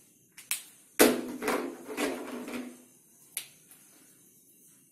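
Clicks and knocks from a whiteboard marker being handled at the board: two quick clicks, then a louder cluster of knocks and rustling starting about a second in, and one more click later.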